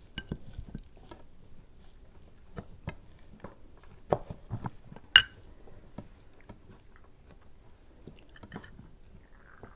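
People chewing food, with scattered light clicks of spoons on plates and one sharp clink about five seconds in.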